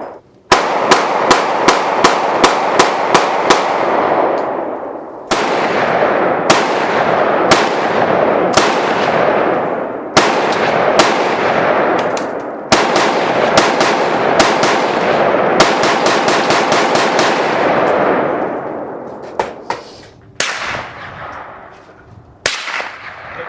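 Gunfire: quick strings of shots, about three a second, with the echo of each shot ringing on and overlapping, then a few single shots near the end as it dies away.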